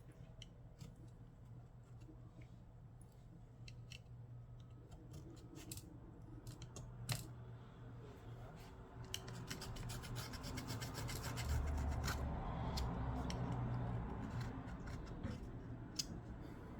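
Scraping and rubbing as leftover adhesive is cleaned off a tablet's frame, with scattered small clicks at first, then denser and louder scraping from about nine seconds in.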